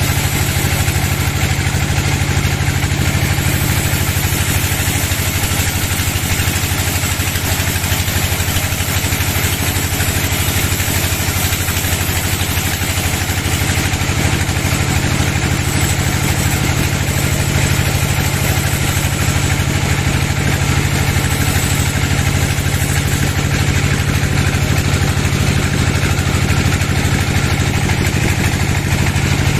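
Sawmill band saw running steadily with a loud low drone, its blade cutting along a teak log.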